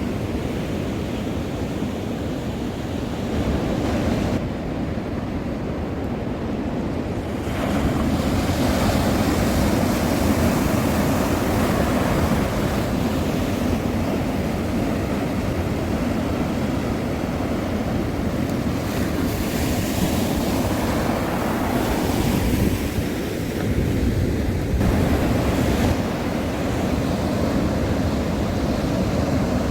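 East Sea waves washing and breaking against the coast, with wind buffeting the microphone. The sound changes abruptly a few times, growing louder about eight seconds in.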